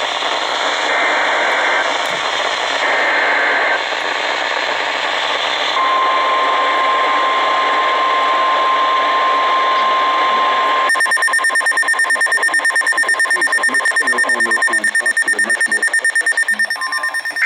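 NOAA Weather Radio alert start heard through a radio receiver over static: a few short warbling data bursts of the alert header, then a steady single-pitch warning alarm tone for about five seconds, then a weather radio's alert alarm beeping rapidly for about six seconds.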